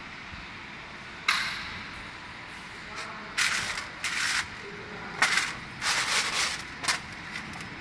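Broken apricot shells and kernels rattling and scraping across a stainless steel tray as a hand sweeps and spreads them, in several short bursts, after a sharp clatter a little over a second in. A steady hiss runs underneath.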